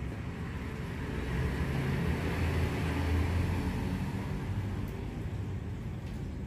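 A road vehicle passing by: a low rumble and rushing noise that swell to a peak about halfway through, then fade.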